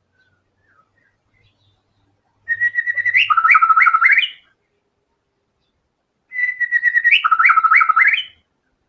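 White-rumped shama singing two matching phrases about four seconds apart, each opening with a held whistle and then dropping into a quick run of rising notes.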